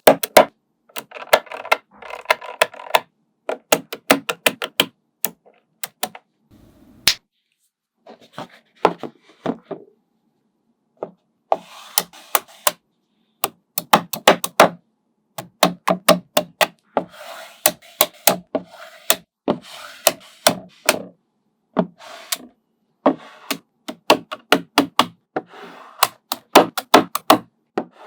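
Small magnetic balls clicking as they snap onto one another, in quick irregular runs, with short stretches of scraping between the clicks.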